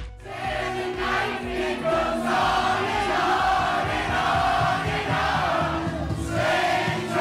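A crowd of many voices singing along together with a song played over a DJ sound system.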